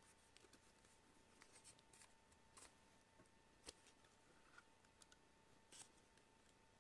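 Faint scattered clicks and light scraping of plastic as a tablet's back cover is handled and pried open; the sharpest click comes a little past halfway. A faint steady hum sits underneath.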